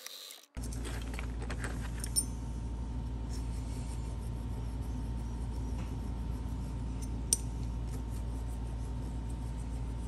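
Steady low hum with a few light metallic ticks and faint scrapes as a small flat steel key is handled and filed by hand.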